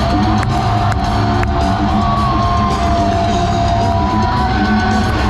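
Loud rock music over an arena's sound system, with one long held note running through it, and a crowd whooping and yelling over the top.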